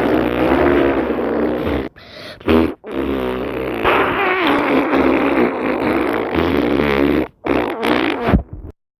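A recorded fart sound effect: a long run of pitched farts whose pitch wavers up and down, broken by a few short gaps.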